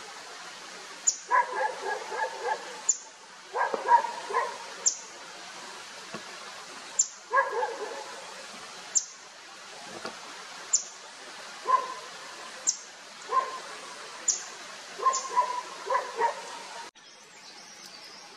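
A high, thin, falling call note repeated about once a second, over bursts of lower barking calls. Both stop abruptly near the end.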